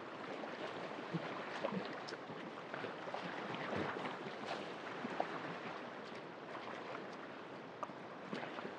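The Kalix River flowing fast past shoreline rocks: a steady rush of water, with small splashes and laps against the stones here and there.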